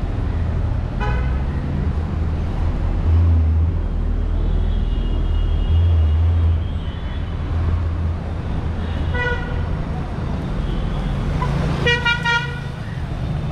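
Street traffic with a steady low rumble of passing vehicles, punctuated by vehicle horn toots: a short one about a second in, another about nine seconds in, and a louder honk near the end.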